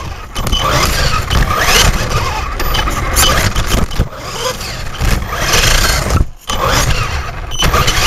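Traxxas E-Revo VXL brushless electric RC truck driving, heard from a camera mounted on the truck: motor and drivetrain whine with rushing tyre and ground noise, surging up and down with the throttle. It drops away sharply for a moment about six seconds in, then picks up again.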